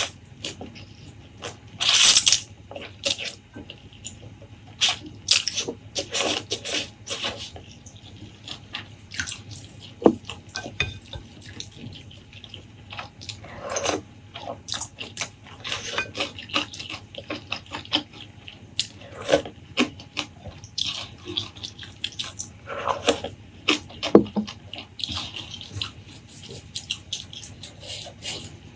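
Close-miked eating sounds: wet chewing, smacking and slurping of food, in irregular short bursts with a few sharper clicks.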